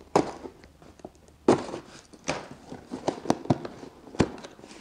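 A cardboard box being opened: a knife slits the packing and the cardboard flaps are pulled apart, giving a run of sharp, irregular cracks and clicks with rustling between them. The loudest cracks come near the start and about a second and a half in.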